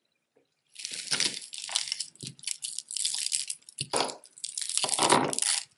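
Metal costume jewelry clinking and rattling as it is handled, a rhinestone chain necklace among it, with many quick metallic clicks and a few duller knocks. It starts under a second in.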